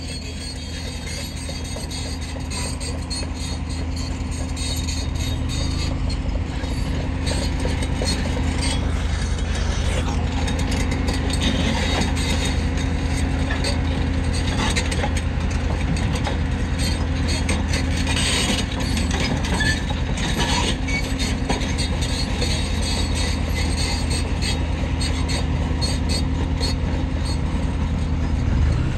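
Motorcycle engine running at low speed over a rough gravel road: a steady low engine hum with a continuous rattling clatter. It grows louder over the first few seconds, then holds steady.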